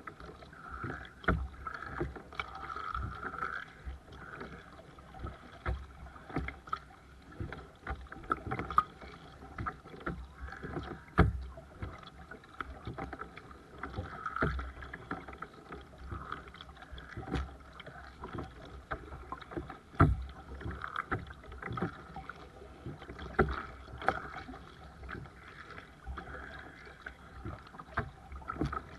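Paddling a Seabird Discovery sea kayak: the paddle blades dip and splash and water slaps the hull, with uneven knocks and low thumps about every second or two over a steady wash of water.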